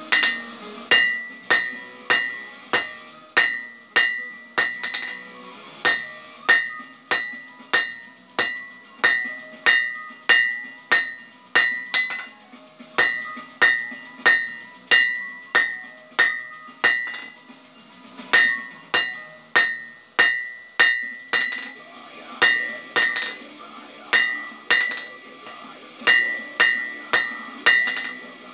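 Hand hammer forging a small red-hot bar on an anvil, about two blows a second in runs with short pauses. Each blow leaves a high, bright anvil ring.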